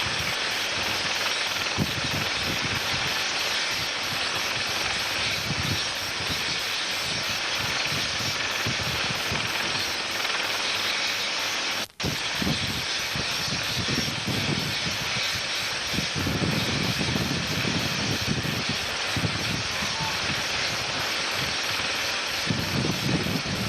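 Helicopter running on the ground with its rotor turning: a steady rush of engine and rotor noise with uneven low rumbles underneath. The sound drops out for an instant about halfway through.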